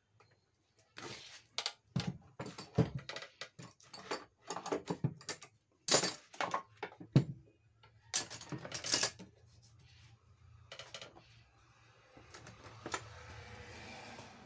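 Irregular metallic clanks, knocks and rattles from the motor-and-arm assembly of a 14-inch cut-off saw being handled and fitted onto its steel base. The loudest knocks fall around two, six and seven seconds in. After about nine seconds only faint handling noise remains.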